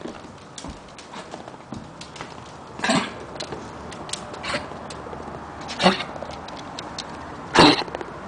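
Dog coughing three times in short bursts, about three seconds in, about six seconds in and near the end, the last the loudest, with faint ticks in between. A chronic cough that the owners took for allergies or kennel cough; the dog was later found to have lung cancer.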